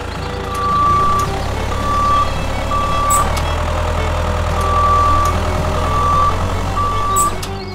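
Electronic reversing-alarm style beeps, six of them at one high pitch and of uneven length, over a steady low motor hum that grows louder about a second in. A couple of sharp clicks come near the middle and near the end.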